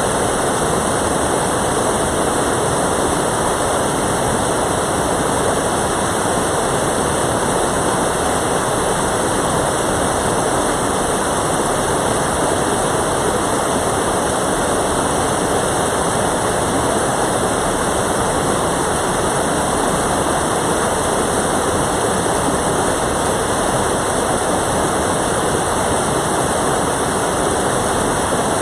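Water of a mountain valley stream rushing steadily, loud and close, with no let-up.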